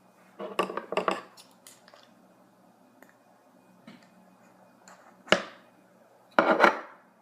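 Hard parts of an air horn clicking and clattering as it is pried apart by hand: a cluster of knocks about half a second in, a few light ticks, a single sharp knock a little past five seconds and another short clatter near the end.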